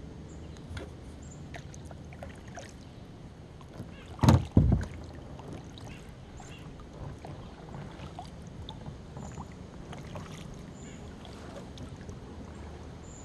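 Kayak paddling on a calm river: small splashes and drips from the paddle and water against the hull, with two loud knocks close together about four seconds in.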